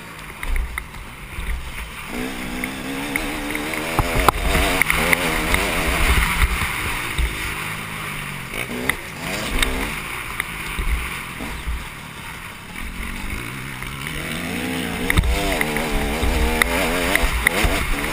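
KTM motocross bike's engine revving up and dropping back again and again as it is ridden hard around a dirt track, with wind buffeting the helmet-mounted microphone.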